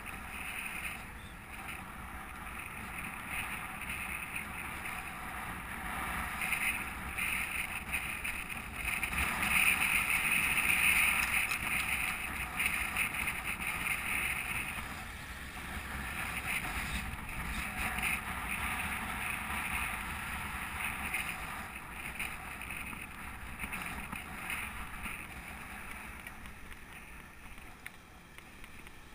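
Wind rushing over the microphone of a camera riding on a moving bicycle, with road noise from the ride, steady and louder for a few seconds about a third of the way in.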